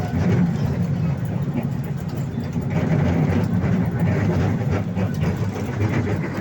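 Park toy train running steadily, its engine giving a constant low rumble heard from aboard the train.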